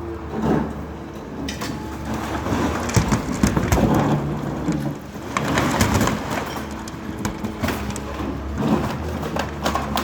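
Steady engine hum under a dense run of crunching and knocking, loudest from about three to six seconds in.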